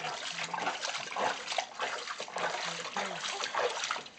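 Water poured from a small jar over a baby sitting in a plastic tub of water, splashing and trickling unevenly.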